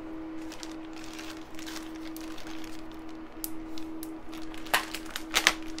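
Plastic bag crinkling and rustling as it is handled and cut open, with a few sharper crackles near the end. A faint steady hum sits underneath.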